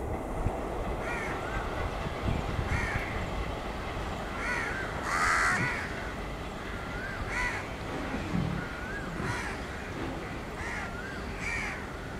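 Crows cawing, short calls every second or so with a louder cluster about five seconds in, over the low steady rumble of a train pulling away.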